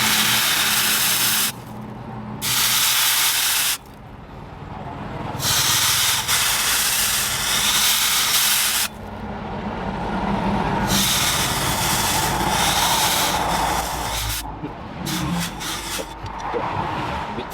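A pressurised jet hissing in three loud bursts that cut on and off abruptly, then a softer, steadier hiss that fades out near the end.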